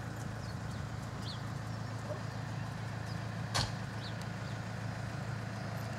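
Steady low mechanical hum, like an engine running in the background, with a single sharp click about three and a half seconds in.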